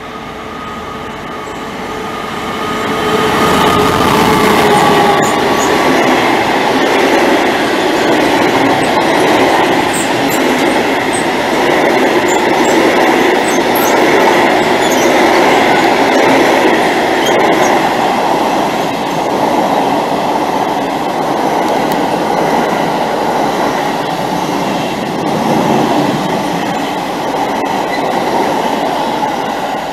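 Freight train passing at speed: the locomotive's pitched note drops as it goes by a few seconds in. A long rake of wagons then rumbles past steadily, with scattered short high squeaks from the wheels.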